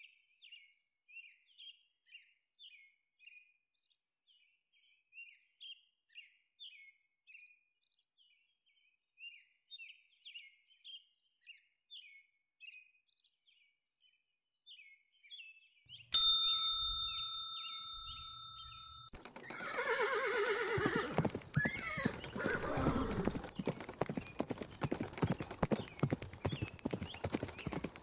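Faint bird chirping, about two calls a second, for the first half. Then a sudden bright ding rings out and fades over a few seconds. A horse whinnies, followed by a fast, continuous clatter of hoofbeats.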